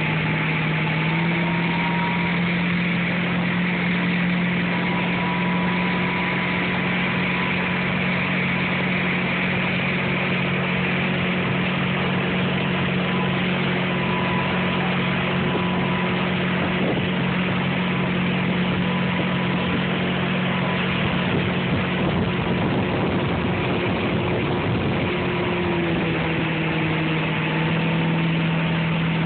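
Motorboat engine running steadily at speed while towing, over the rush of churning wake water; the engine note rises slightly about a second in and drops back near the end.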